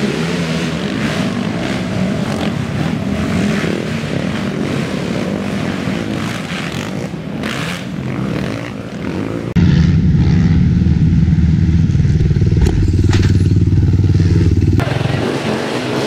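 Race ATV engines revving hard as several quads pass one after another through deep mud. About nine and a half seconds in, the sound jumps suddenly to a louder, steadier engine drone held close for about five seconds, then changes again near the end.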